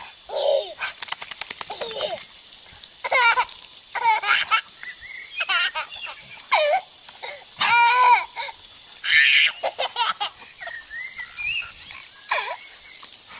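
A toddler laughing and squealing in repeated short high-pitched bursts, loudest about halfway through, over a steady high hiss.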